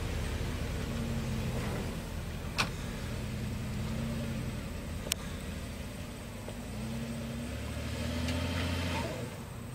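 Jeep's engine running at low speed as it tows a float plane on its floats across grass, the engine note swelling and easing a little. Two sharp clicks come about two and a half and five seconds in.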